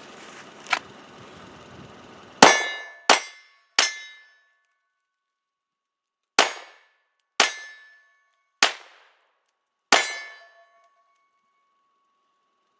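9mm Glock 19 pistol fired: three quick shots about two and a half seconds in, then, after a pause, four slower shots. Each shot leaves a short ringing tone, as from a struck steel target.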